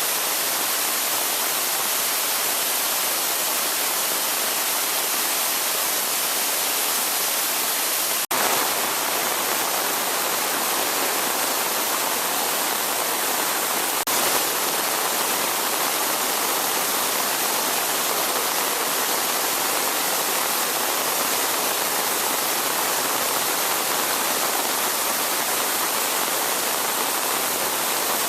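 Waterfall water rushing in a steady, even roar. The sound breaks off for an instant twice, about eight and fourteen seconds in.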